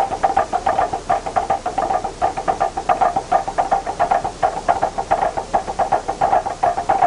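Fast, even ritual percussion, about six strokes a second, each stroke sounding over a steady ringing tone.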